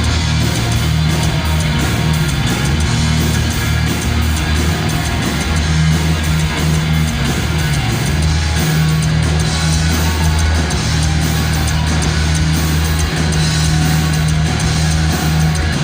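Heavy metal band playing live, instrumental: distorted electric guitars, bass and drum kit, loud and steady, with sustained bass notes that shift every second or two.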